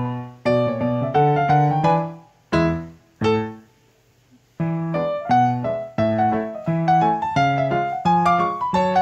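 Background piano music: a melody of short struck notes that pauses for about a second near the middle, then carries on.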